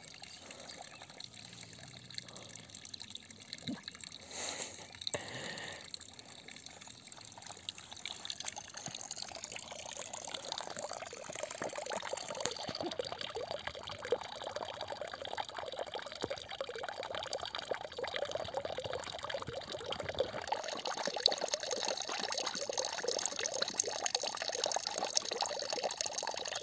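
Water trickling and splashing, growing louder and denser from about eight seconds in.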